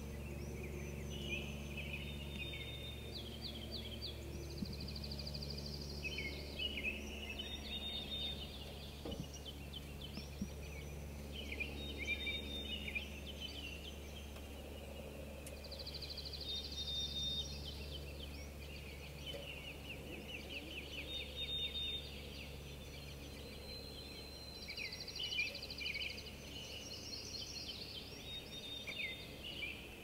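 Songbirds singing: trilled and warbled phrases come every few seconds, over a steady low hum.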